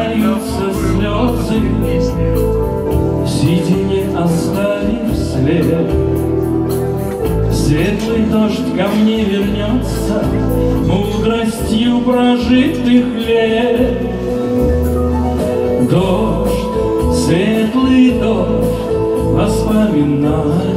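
A man singing a slow song to his own strummed steel-string acoustic guitar, played live through a PA.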